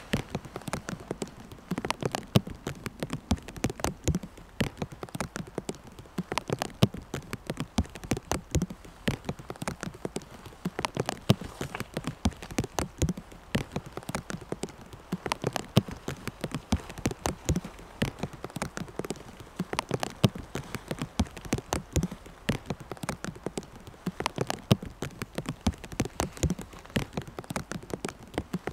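Light rain falling. The individual drops land as a dense, irregular scatter of sharp taps.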